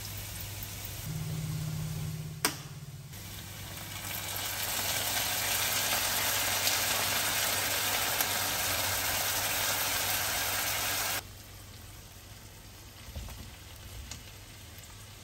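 Vegetables frying in a nonstick pan, over a steady low hum. From about four seconds in, as liquid seasoning is poured from a bottle into the pan, a loud sizzle builds and holds. It cuts off suddenly about eleven seconds in, leaving quieter frying.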